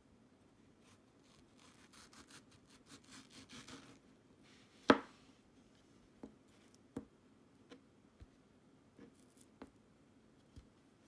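Knife cutting a ripe mango on a plastic cutting board: a run of quick scraping strokes as the blade works through the fruit, then one sharp knock on the board about five seconds in, followed by several lighter knocks and taps as pieces are cut and set down.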